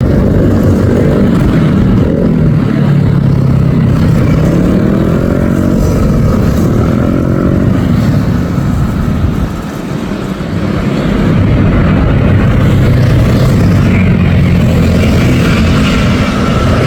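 Boeing 787-8 airliner's jet engines passing close on its landing approach: a loud, steady rumble with sweeping tones that rise and fall. It eases off briefly about halfway through, then builds again.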